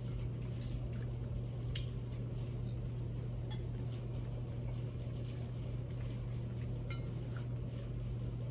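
Small clicks and clinks of people eating at a table, a few scattered ticks over a steady low hum.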